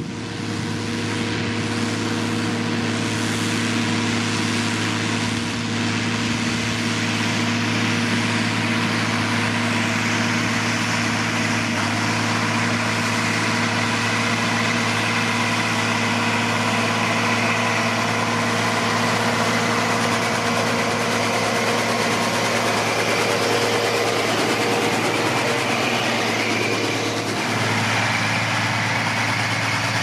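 Fiat 180-90 tractor's diesel engine running steadily under load, pulling a reversible plough through stubble.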